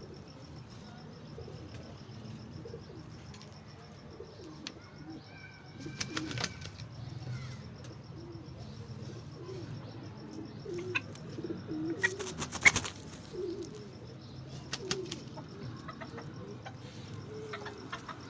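Serama bantam chickens clucking softly over and over, with a few sharp clatters of wings or feet, the loudest a little past the middle.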